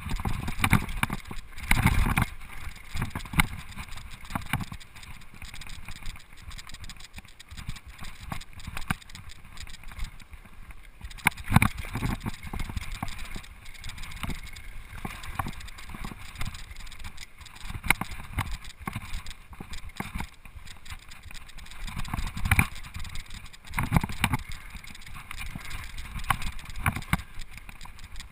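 Rocky Mountain Flatline downhill mountain bike rattling and clattering over a bumpy dirt trail at speed, a constant run of small knocks from the chain and frame, with heavier jolts now and then.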